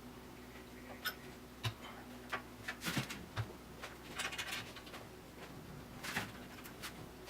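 Faint scattered clicks, taps and brief scrapes of a hard water-cooling tube being worked into its fittings, over a steady low hum.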